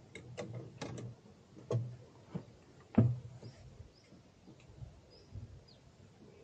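Scattered knocks and clicks from someone moving about in a small boat, the loudest about three seconds in. A few faint bird chirps follow.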